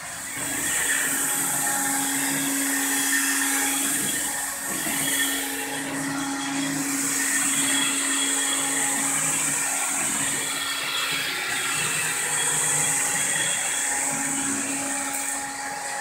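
Electrolux cordless stick vacuum running steadily on a hardwood floor, a constant motor hum under a high airflow hiss.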